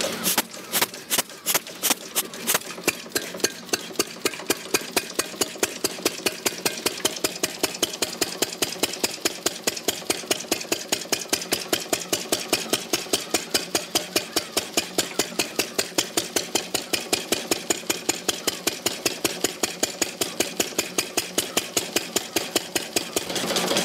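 1901 Triumph prototype motorcycle engine running as it is ridden, each firing a sharp pop. The beat is uneven for the first couple of seconds, then settles into a steady rhythm of about four to five pops a second.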